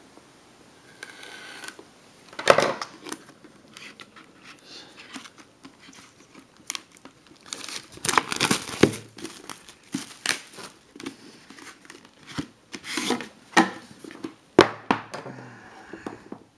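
Wrapping being torn and crinkled off a sealed box of trading cards, in irregular crackling bursts with sharp snaps.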